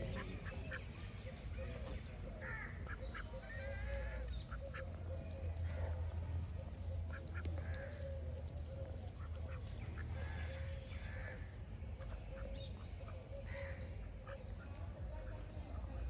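Domestic geese and ducks calling with scattered short honks and quacks, over a steady, pulsing high-pitched insect trill.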